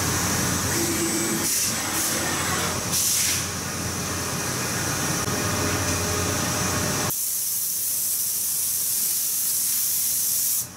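High-speed CNC milling machine running over an aluminium sheet. About seven seconds in, a compressed-air blow gun starts a loud, steady hiss as it clears chips off the milled aluminium panels, stopping abruptly near the end.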